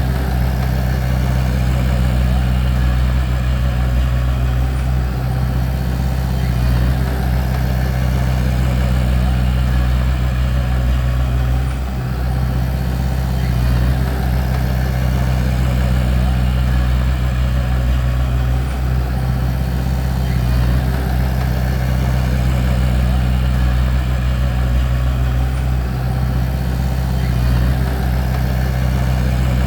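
Bulldozer's diesel engine running steadily at an even pitch.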